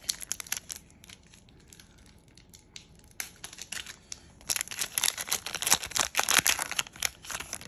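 Foil Pokémon booster pack wrapper being torn open and crinkled as the cards are worked out. There is crackling in the first second, a quieter stretch, then dense crinkling from about three seconds in, loudest in the second half.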